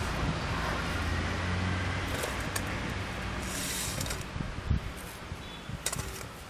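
Sweet potatoes set into a stainless steel bowl, with a few light knocks, over a steady low engine-like hum that fades away after about three seconds.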